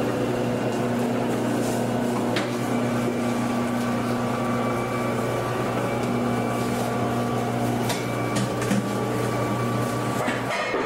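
Electric pasta-cutting machine running steadily with a motor hum and a thin whine, cutting a sheet of dough into long ribbons on its conveyor, with a couple of light clicks.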